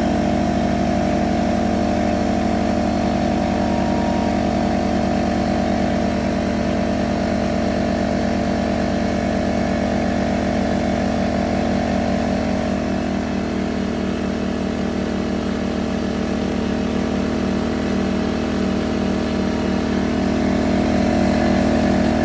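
Firman portable generator's engine running steadily under load together with a Bosch 6-gallon air compressor's pump running as its tank fills.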